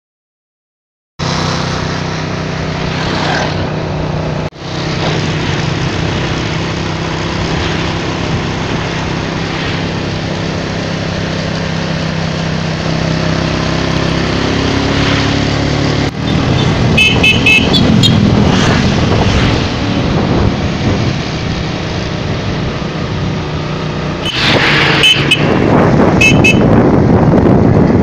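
After about a second of silence, a motorcycle engine runs steadily under way with wind noise. Clusters of short horn beeps come about 17 seconds in and again near the end.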